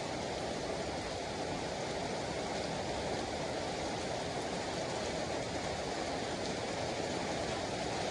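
Steady heavy rain falling on pavement, puddles and leaves: an even, unbroken wash of noise.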